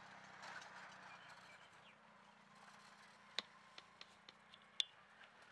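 Faint outdoor ambience over a field: a low steady hum under a soft hiss, with a few sharp short ticks or chirps in the second half, the loudest two about three and a half and nearly five seconds in.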